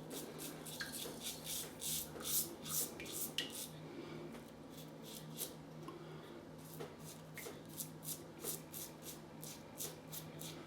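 Gillette Tech safety razor scraping stubble through lather in many short, quick strokes, a faint rasp with each stroke, on the third pass of a wet shave.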